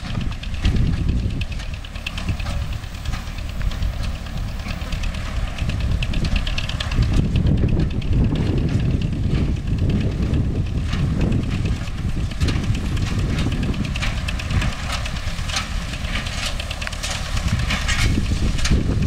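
MTZ-5LS tractor's diesel engine running steadily while driving a Vestjyden hay baler, with a continuous dense clatter from the working machinery.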